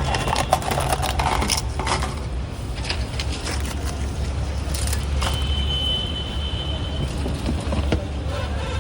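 Busy street background: a steady low traffic rumble with scattered metallic clinks and clatters, and a single high steady tone lasting under two seconds about halfway through.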